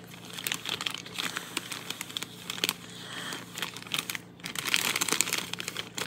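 Plastic candy wrappers crinkling as they are handled close to the microphone, with many sharp, irregular crackles.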